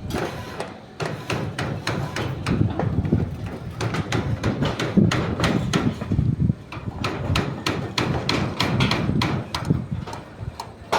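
Hammering: many sharp strikes, several a second at an uneven pace.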